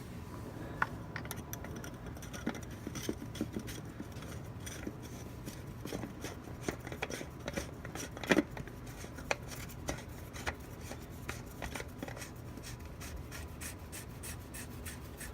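Oil filter housing cap being threaded back onto a Mazda 3 engine by hand and snugged up: scattered small clicks and scraping of plastic and metal parts, with one sharper click about eight seconds in.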